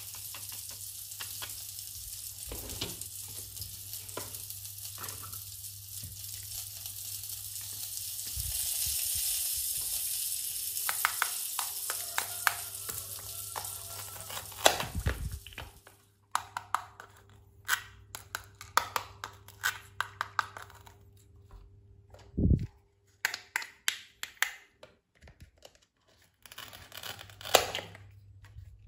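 A toy barbecue grill plays its electronic sizzling sound effect, a steady hiss that cuts off suddenly about halfway through. After that come scattered clicks and taps of plastic toy food being handled, and near the end a plastic toy knife cutting a toy tomato apart.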